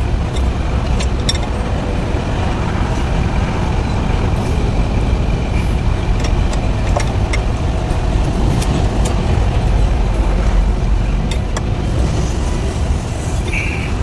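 An engine running steadily with a low rumble, with scattered light clicks and taps over it.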